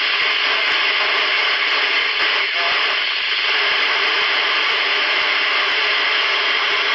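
CB radio on Channel 31 FM giving a steady, loud hiss of receiver noise through its speaker while the S-meter shows a signal coming in.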